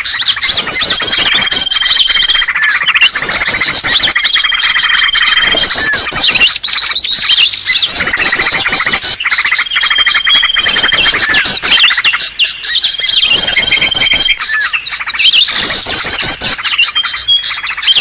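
Cucak ijo (green leafbird) giving agitated, noisy calls. A dense run of rapid chattering trills and quick whistles is broken by one held, level whistle that returns about every three seconds.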